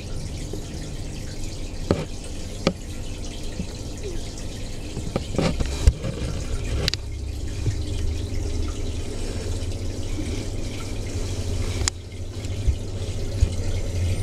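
Aquarium water trickling and dripping over a steady low hum, with a few sharp clicks and splashes scattered through it.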